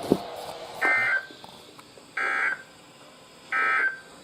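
Emergency Alert System SAME end-of-message signal: three short, harsh digital data bursts, each under half a second and a little over a second apart, marking the end of a weather-radio warning.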